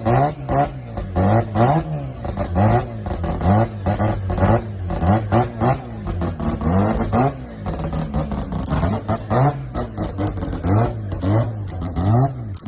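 Mazda 12A rotary engine revved in quick repeated blips, its pitch sweeping up and dropping back about once a second, over and over.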